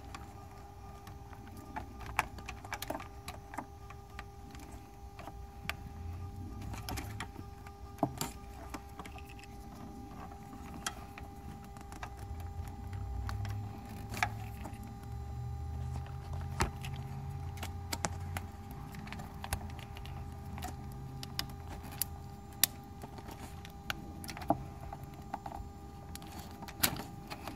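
Irregular small clicks and rattles of a plastic wiring-harness connector being handled and worked into place behind a car headlight, over a steady hum.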